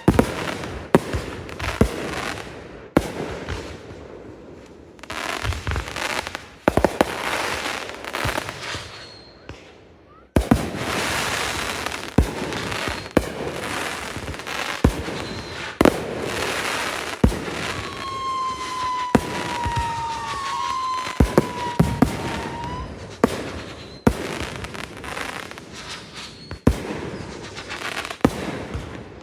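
Consumer fireworks display: repeated sharp bangs of aerial shells and cakes over a steady crackle. A high whistle sounds for several seconds in the second half, dipping slightly in pitch.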